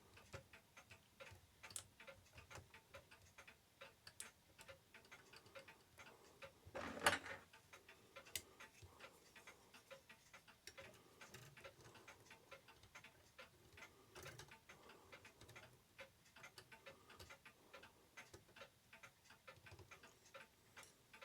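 Faint, even ticking from an Ingraham clock movement, a few ticks a second, as its mainsprings are let down, with one louder knock about seven seconds in.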